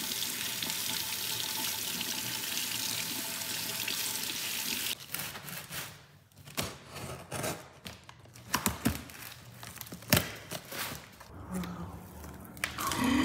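Water running steadily from a tap, shut off abruptly about five seconds in, followed by scattered knocks and clatters.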